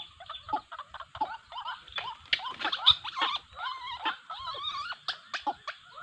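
White-breasted waterhen calls: rapid, overlapping croaking notes repeated many times, loudest about three seconds in.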